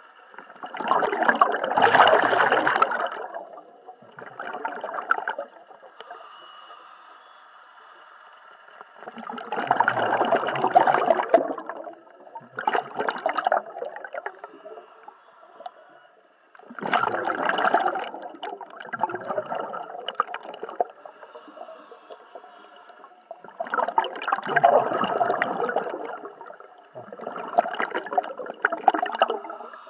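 Scuba diver breathing underwater through a regulator: four breaths, each a loud bubbling burst of exhaust bubbles about every seven to eight seconds, with a faint steady hum between breaths.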